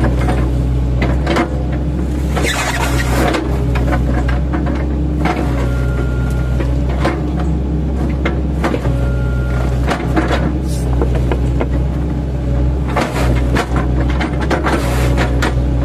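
8-ton-class mini excavator's diesel engine running steadily under hydraulic load, with many irregular cracks and knocks as its bucket-mounted chipping blades chop oil palm trunks. Two short high whines come about 6 and 9 seconds in.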